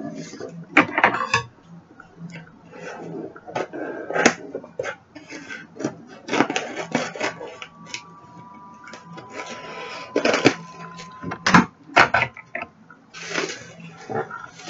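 A mail package being cut open with scissors and unwrapped by hand: irregular rustling, crinkling and tearing of the packaging, broken by sharp clicks and taps.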